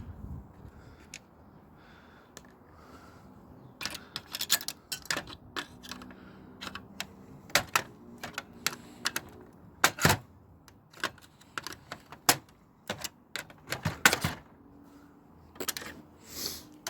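Irregular clicking, knocking and clattering of plastic printer parts and screws as a Samsung Xpress M2022 laser printer is taken apart by hand. The clicks begin about four seconds in, some of them sharp and loud, and there is a brief scrape near the end.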